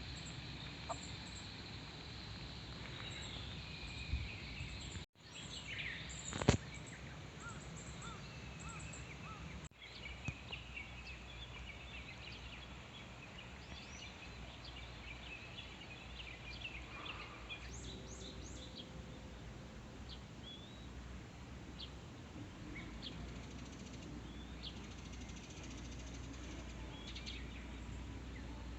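Birds chirping with many short, scattered calls over a steady outdoor background hiss.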